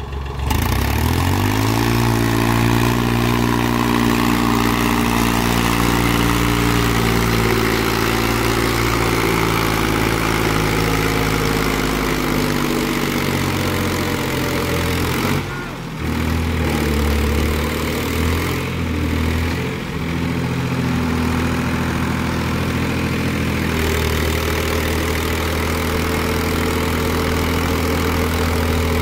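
Powertrac diesel tractor engine working hard as it pulls a loaded trolley through mud. The revs climb in the first couple of seconds and hold high, drop briefly about halfway through, rise and fall for several seconds, then hold steady again.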